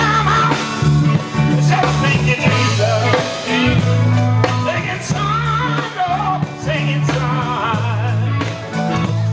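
Gospel group singing live with guitar accompaniment over a strong, steady bass line; the voices waver with vibrato.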